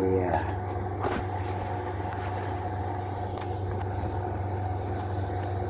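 A steady low hum throughout, with a brief vocal sound at the very start and a few soft clicks and handling noises.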